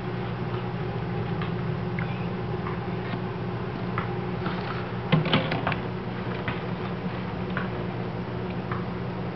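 Scattered small clicks and rustles in a gerbil cage's wood-shaving bedding, with a short cluster of louder clicks about five seconds in, over a steady low hum.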